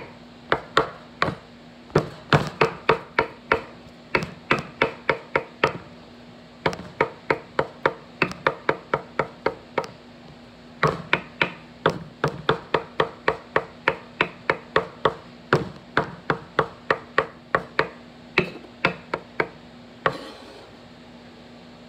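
Kitchen knife chopping hard-boiled eggs on a wooden cutting board: quick, even strikes about three a second, in several runs with brief pauses, stopping about two seconds before the end. A faint steady hum runs underneath.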